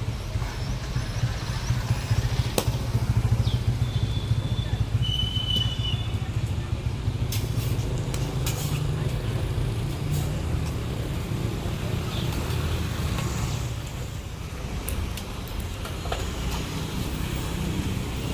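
Steady low rumble of road traffic, swelling a few seconds in, with a few sharp clicks and two short high-pitched tones about four and five seconds in.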